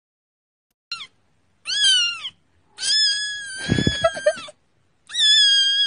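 Grey tabby kitten meowing loudly: four cries, a short falling one, a rising-and-falling one, then two long drawn-out wailing ones, with a brief low rumble under the third.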